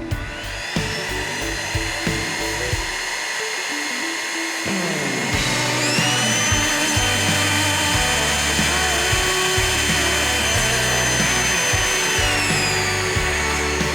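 Aldi cyclonic stick vacuum cleaner's motor whining steadily. It speeds up to a higher pitch about five seconds in, holds, and winds back down to a lower pitch near the end.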